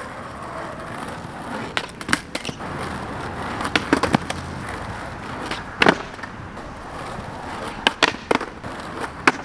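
Skateboard with Independent 144 trucks rolling on concrete, with a series of sharp clacks as the board is popped, flipped and lands during a nose manual nollie flip attempt.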